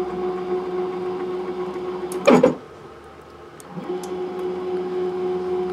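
Stepper motors of a 3018 desktop CNC jogging the table under a dial indicator: a steady whine that stops for about a second past the halfway point, then starts again with a short rising pitch as the axis moves back the other way. A brief vocal sound about two seconds in is the loudest thing.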